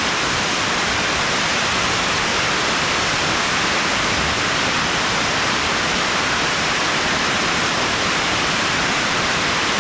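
Small waterfall's rushing water, a steady, loud, unbroken roar of noise with no changes.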